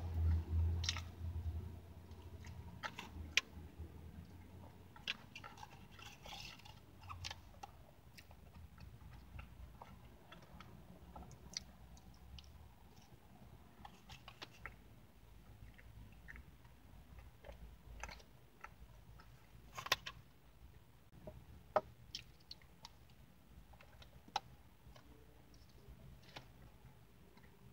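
Close-up chewing and eating sounds, with scattered sharp clicks and scrapes of a plastic fork against a foil pie tin. A brief low rumble opens it.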